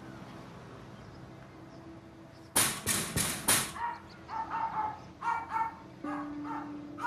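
Four loud bangs on a metal security screen door, about two and a half seconds in, then a small dog yapping repeatedly in short high-pitched barks.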